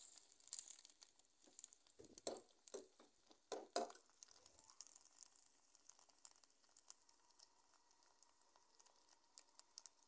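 Steel ladle scraping and knocking against a steel karahi as onions are stirred in hot oil: a few short knocks in the first four seconds. After that there is only a faint crackle of the onions frying.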